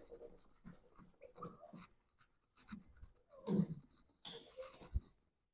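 Lint-free cloth wiping a glass window pane: faint, uneven rubbing strokes, with a soft bump near the end.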